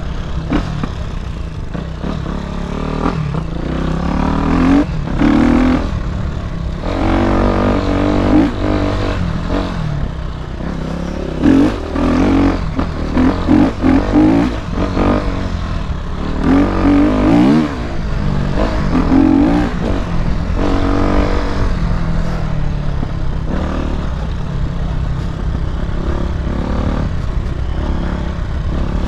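Dirt bike engine revving up and down as it is ridden over a rutted trail, heard from on the bike, with short knocks and rattles from the bumps.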